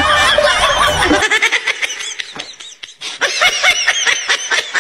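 Laughter, dense for about the first second, then thinner high-pitched snickering and squeals over quick clicking.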